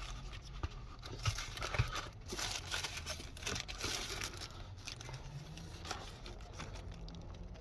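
Paper burger packaging crinkling and rustling as the burger is handled and opened, with irregular small clicks and crackles.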